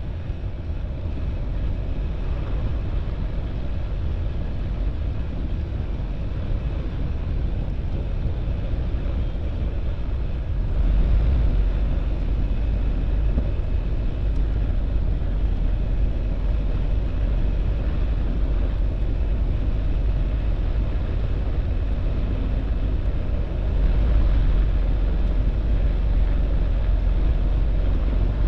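Van's RV light aircraft's piston engine and propeller running at taxi power, a steady low drone that steps up in loudness about 11 seconds in and again about 24 seconds in as the throttle is opened a little.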